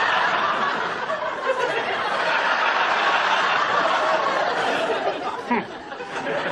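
Sitcom studio audience laughing at a punchline, a long wave of crowd laughter that dies away near the end.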